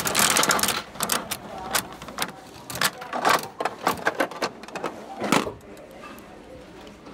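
Coin-operated capsule toy (gashapon) vending machine's handle being turned, its mechanism giving a run of irregular clicks and knocks. A louder knock about five seconds in is the capsule dropping into the chute, after which the clicking stops.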